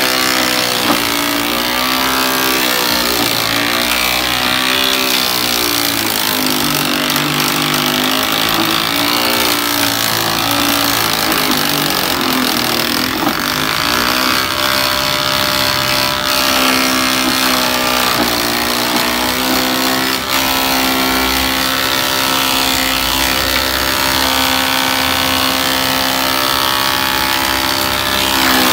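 Thickness planer running loud and steady as its cutterhead planes a deodar-wood and clear-epoxy tabletop board. The motor's pitch sags and recovers several times as the cutter takes load.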